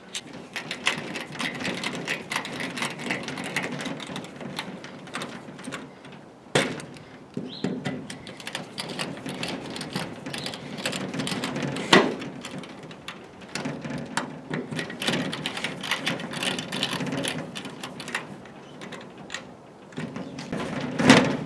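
Irregular rustling and handling noise of hands working on the plastic shed's door hardware, with many small clicks and two sharp knocks, about six and twelve seconds in.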